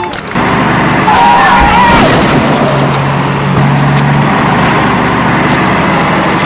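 Loud, rough vehicle engine noise, running steadily, with a short wavering tone about a second in and a few sharp clicks.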